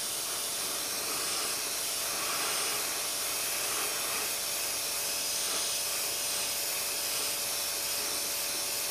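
Gravity-feed airbrush spraying thinned black acrylic paint: a steady hiss of air without a break.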